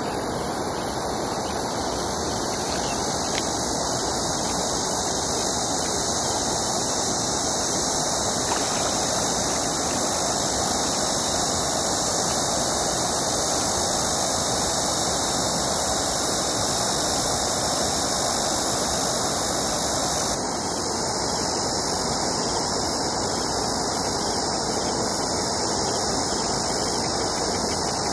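Steady rushing noise of flowing river water, with no distinct splashes; the sound shifts slightly about twenty seconds in.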